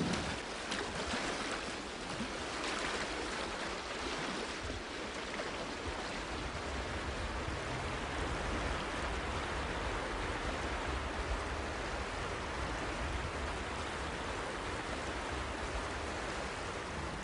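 Steady rushing of a broad river's flowing water, an even hiss with a low fluttering rumble underneath.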